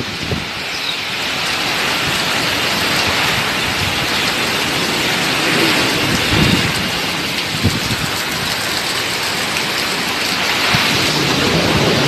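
Heavy hurricane rain pouring steadily, with a few short low thumps in the wind.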